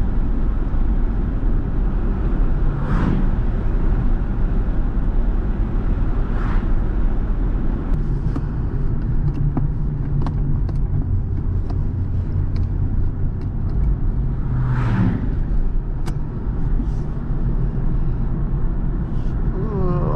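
1997 Pontiac Firebird cruising at about 50 mph: a steady engine drone with road and tyre noise, and a few brief louder swells along the way.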